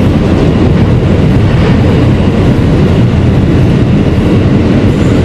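Kawasaki R160B subway train running at speed, heard from inside the car: a loud, steady rumble of wheels on rail.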